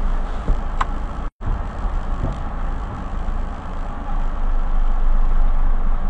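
A car engine idling, heard from inside the stopped car's cabin as a steady low rumble. The audio cuts out completely for a moment about a second in.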